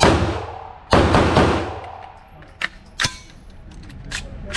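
Two loud gunshots about a second apart, each trailing off in a long echo in the hard-walled indoor range, followed by a few shorter, quieter sharp knocks.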